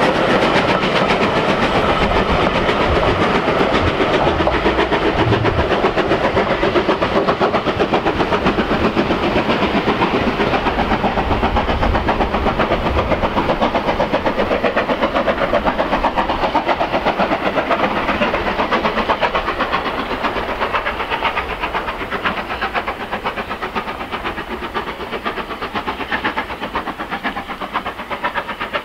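Train of vintage wooden-bodied coaches rolling past behind a steam locomotive, its wheels clicking rapidly over the rail joints. The sound fades slowly over the last third as the train draws away.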